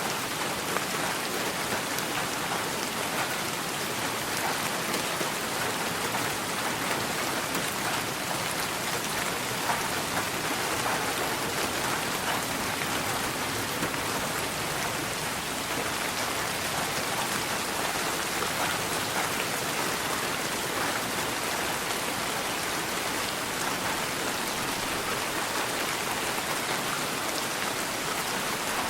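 Steady rain falling, heard as an even hiss of countless drops with fine ticks of individual drops through it, holding the same level throughout and with no thunder.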